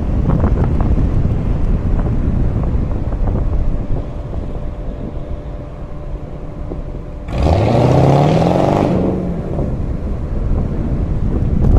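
Wind and road rumble from a moving car, then about seven seconds in a car engine revs up hard, its pitch rising quickly and then levelling off for about two seconds before dropping away: a car accelerating.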